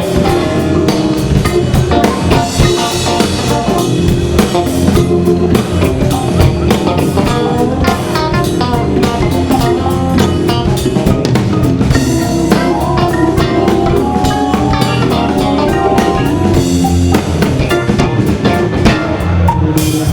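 Live band playing: drum kit keeping a groove with guitar and Hammond organ over it.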